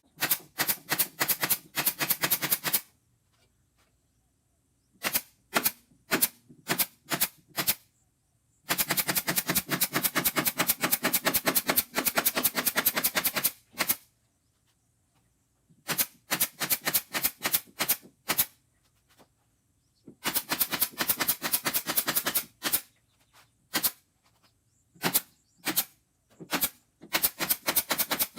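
Runs of rapid, sharp mechanical clicks or taps, each run lasting from about one to five seconds, separated by short silences.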